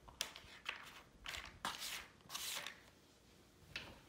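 Cardboard jigsaw puzzle pieces being stirred and dropped in a cardboard box lid: a handful of short, light rattles over the first three seconds and one more near the end.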